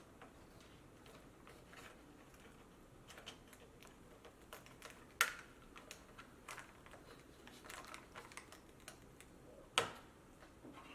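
Scattered small clicks and taps of hands and a tool working on a laptop's plastic screen bezel and tape, with two sharper clicks, one about five seconds in and one near the end.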